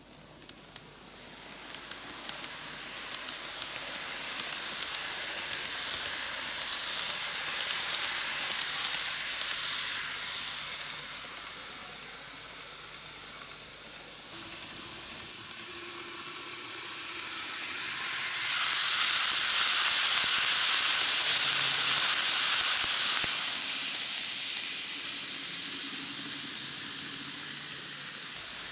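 Greenmax N-gauge Keikyu New 1000 series model train running on TOMIX canted track: a high, hissing rolling noise of the motor and wheels with small clicks. It swells as the train nears, dips, then grows loudest about two-thirds of the way through before easing off.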